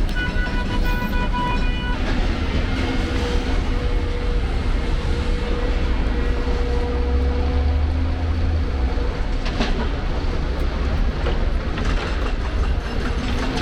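Steady low rumble of street traffic, with a brief high whine in the first two seconds.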